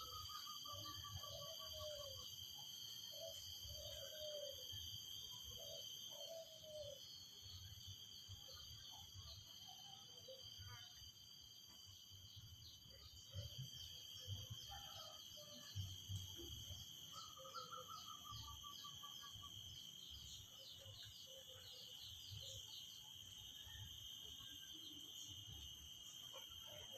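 Cicadas droning steadily in several high, unbroken tones, with short bird chirps and warbling calls scattered throughout.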